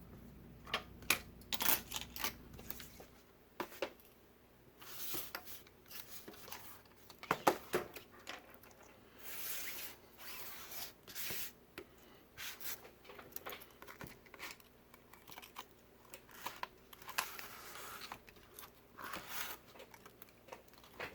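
Quiet, scattered clicks, taps and short tearing, crinkling sounds of hands and small tools working at the flex cables of an iPad Pro replacement screen, trying to pull the stuck cables apart.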